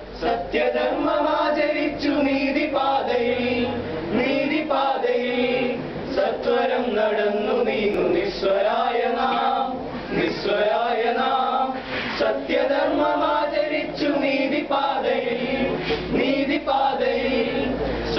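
A group of male voices singing together, a church male-voice group song, with phrases held and joined by short breaths.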